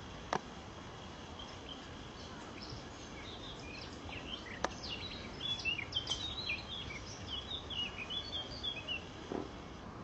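Wild bird chirping: a run of short, quick, varied high chirps over about five seconds in the middle, over a steady outdoor background hiss. Two sharp clicks come in, one just after the start and one just before the chirping.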